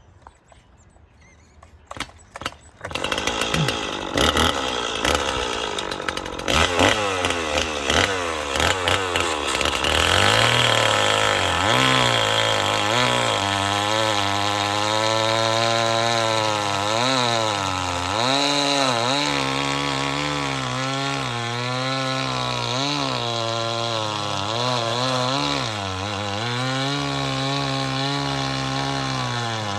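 Stihl two-stroke chainsaw starting about three seconds in, then cutting a pine log. Its engine pitch sags repeatedly as the chain bites into the wood and climbs again as the load eases.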